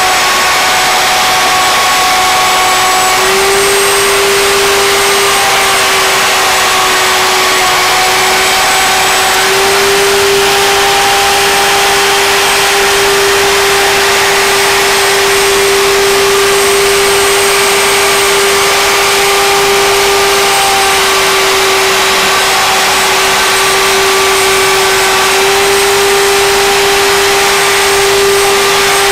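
Router running at full speed while its bit surfaces a board, taking a shallow pass of about 1/16 to 1/8 inch: a steady high whine over a hiss of cutting, the pitch shifting a little now and then.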